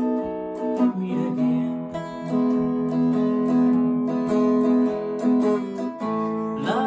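Telecaster-style electric guitar playing a slow country melody, each note or chord ringing for about a second before the next.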